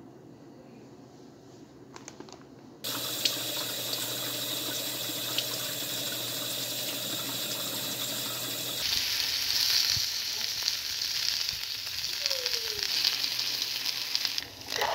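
About three seconds in, tap water starts running steadily into a bowl of baby spinach leaves as they are rinsed. About nine seconds in it cuts abruptly to the wet spinach sizzling in a frying pan.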